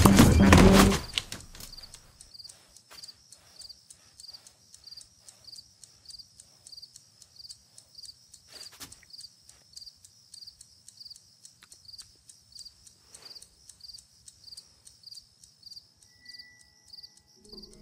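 Music ends about a second in, leaving a cricket chirping steadily at about two chirps a second. Faint soft ticks run under it, and there is a single soft knock about halfway through.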